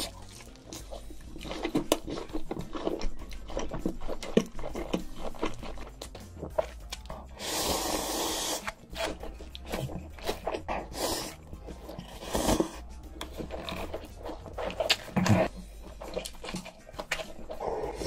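Close-miked mukbang eating sounds: wet chewing with many small clicks and crackles as a sauced chicken drumstick is eaten, then long slurps of noodles partway through and again near the end.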